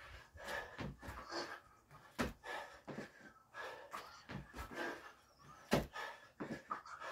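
Irregular knocks and thuds from a hard workout, sometimes two or three within a second, with short pauses between.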